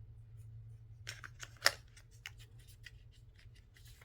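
Plastic packaging and small accessories being handled: a string of light clicks and crackles beginning about a second in, with one sharp click near the middle, over a low steady hum.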